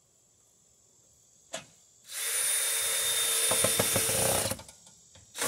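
Cordless drill driving a screw through an electrical box into the wall: a click, then a steady run of about two and a half seconds that stops, and a second run starting near the end.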